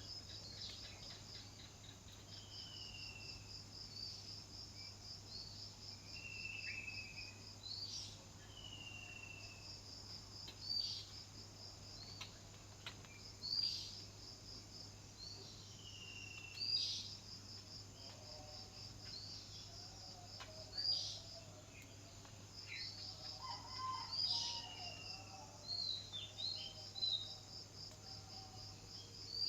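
Birds chirping, with sharp high calls and short falling whistles every few seconds, over a steady pulsing insect trill like a cricket's. Some lower, softer calls join in during the second half.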